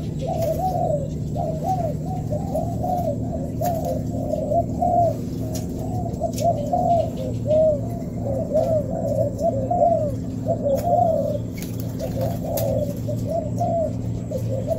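Many spotted doves cooing at once, their short rising-and-falling coos overlapping almost without pause, over a steady low hum.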